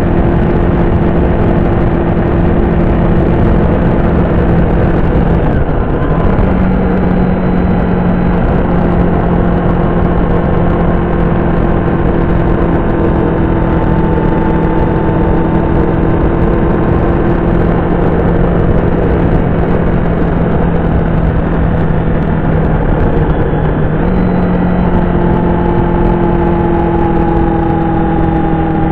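Honda VFR750's V4 engine running at steady road speed under heavy wind rush, heard from a tank-mounted camera. The engine note dips briefly and comes back slightly higher twice, about six seconds in and again about five seconds before the end.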